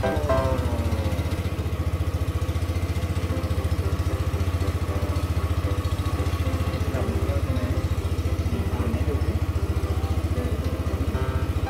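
Boat engine running steadily, a fast even chugging as the wooden tour boat moves along the channel.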